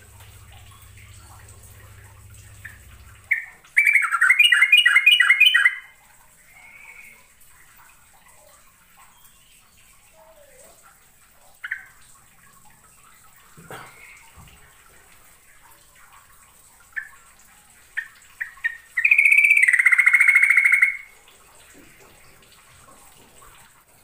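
Yellow-vented bulbul singing: a loud phrase of rapid repeated notes a few seconds in and another near the end, with short single calls in between.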